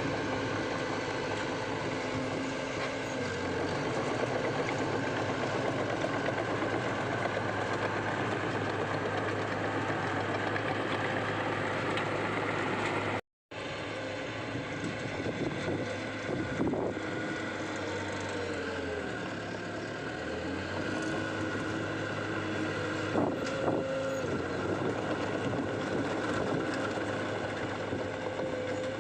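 Diesel engine of heavy earthmoving machinery running steadily, with a few knocks later on. The sound drops out briefly about halfway through.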